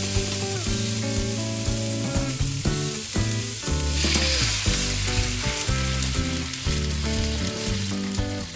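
Food frying in hot oil in a pan, a steady sizzle that grows louder for a moment about four seconds in, over background music.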